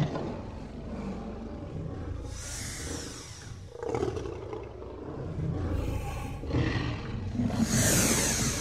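Tyrannosaurus rex roar sound effect: several deep roars in a row, the last and loudest with a hissing edge.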